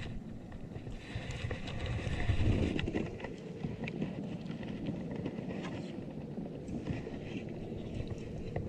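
Wind on the microphone and water lapping against a plastic kayak hull, with scattered light clicks and knocks from the kayak and gear. The rumble swells briefly a few seconds in.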